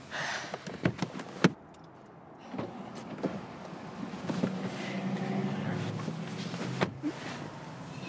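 Car doors being opened and shut as someone climbs out of the back seat and comes round to the front: sharp latch clicks and knocks about a second in, rustling of clothes against the seat, and a door knock near the end.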